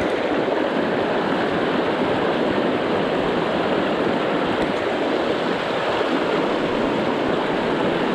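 River water rushing over rocks in a steady, even flow.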